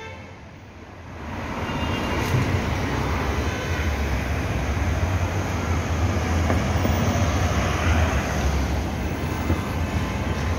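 City street traffic: cars driving past close by over a steady rumble of traffic, fading in over the first second or so.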